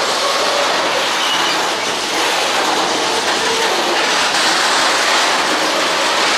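Freight wagons of an aluminium train rolling past, a steady noise of wheels on rail with a few short squealing tones from the wheels.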